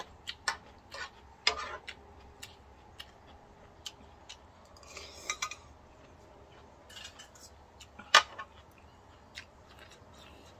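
Eating utensils clicking and clinking against a bowl during a meal of ramen with rice, in scattered irregular taps, with one louder clink about eight seconds in.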